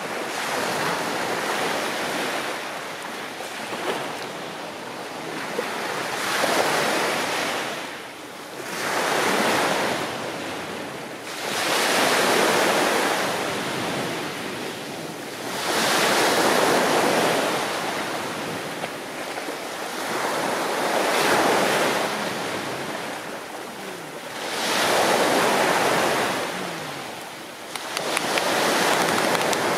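Small sea waves breaking and washing up a pebble beach, the surf swelling and fading every few seconds.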